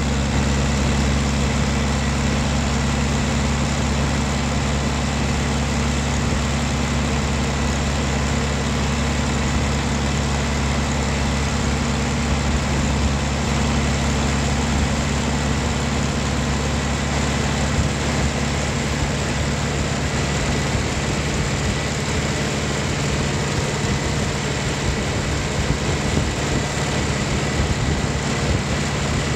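John Deere tractor engine running steadily as the tractor drives along a gravel road, heard from the operator's seat, with an even drone that holds constant throughout.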